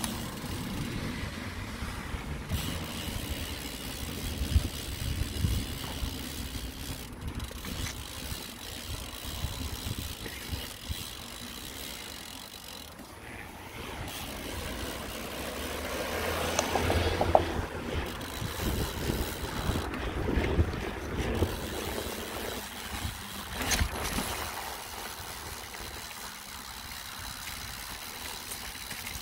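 Mountain bike riding over rough ground, heard from a phone mounted on the handlebars: a low rumble with scattered knocks and rattles over bumps, louder for a few seconds a little past the middle.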